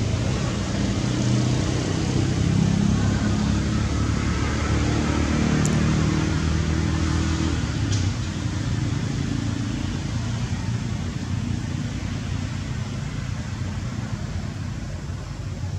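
A motor vehicle's engine running, a steady low rumble that fades over the second half, with two faint clicks about six and eight seconds in.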